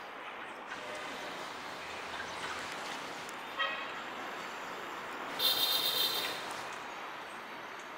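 Steady street noise at a level crossing as the end of a passenger train rolls past. A short horn toot sounds about three and a half seconds in, and a louder, shriller vehicle horn follows for about a second halfway through.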